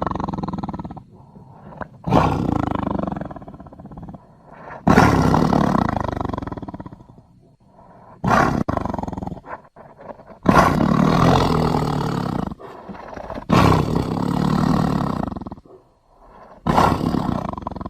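A series of about six loud creature roars, each starting suddenly and trailing off over a second or two. They are sound effects for an imaginary dinosaur-like monster, built from lion and dinosaur roar samples.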